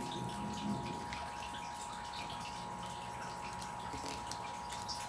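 Quiet room tone: a steady hiss with a thin, faint whine, and a few faint light clicks as a plastic action figure is handled and set on its display stand.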